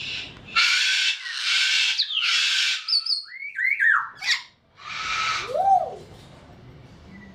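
Parrot screeching: several long, harsh screeches, then a run of shorter whistled calls that slide up and down in pitch, and one more harsh screech just past halfway through.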